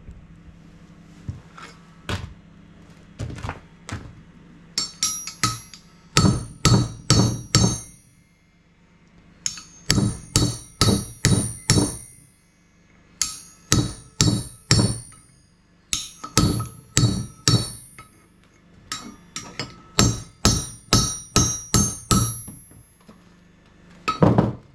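Hammer striking a piece of steel in quick runs of four to six blows, with short pauses between the runs; each blow rings with the same bright metallic tone.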